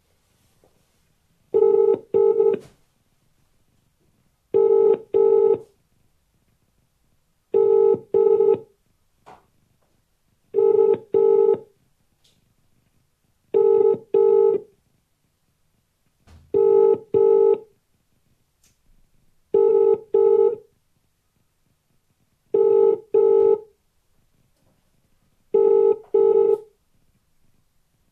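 British telephone ringing tone heard through a phone's loudspeaker: nine double rings (brr-brr), one every three seconds. The outgoing call is ringing out unanswered.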